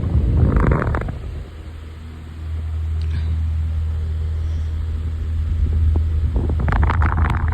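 Comfort Zone wall fan with Lasko 12-inch blades running on high and oscillating: a steady low hum and wind rush that dips for about a second early on, then returns. Two brief, brighter gusts of noise come, one near the start and one near the end.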